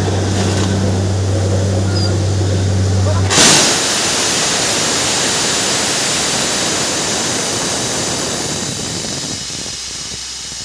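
Borewell drilling rig: a steady engine hum, then about three seconds in a sudden loud rush of air hissing out that replaces the hum and slowly fades.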